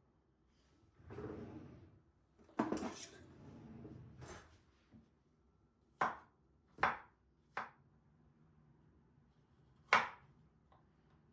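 Kitchen dishes and utensils being handled: a short scrape, a clatter, then four separate sharp knocks, the last near the end and the loudest.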